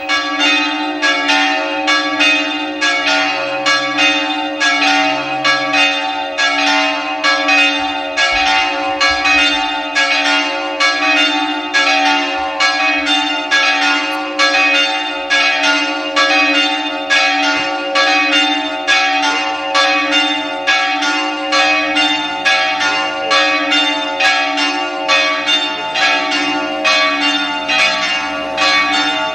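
Church bells pealing: several bells ringing together in a rapid, continuous run of strikes, about two a second, over a sustained ringing hum. They start abruptly.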